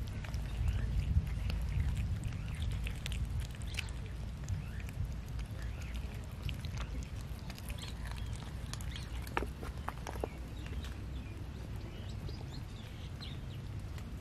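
Cats chewing and eating raw chicken: many small, irregular wet clicks and smacks of teeth and tongues, over a low background rumble.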